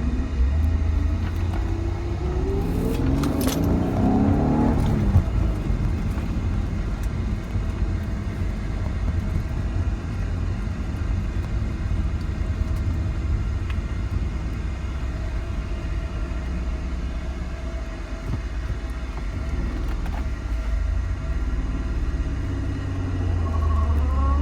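Freshly rebuilt V6 of a 1993 Mitsubishi 3000GT SL driving under load, over a steady low road rumble. The engine revs up about two seconds in, then again near the end.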